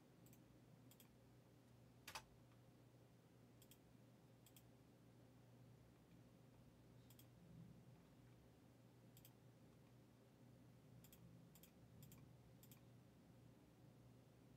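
Near silence with faint, scattered sharp clicks, about ten in all, irregularly spaced. The strongest comes about two seconds in.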